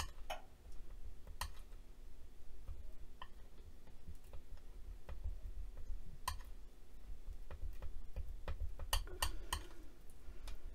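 Dental tool clicking and tapping against a glass work mat while mashing gold polymer clay into liquid clay. The clicks are scattered and sharp, with a quick run of several about nine seconds in.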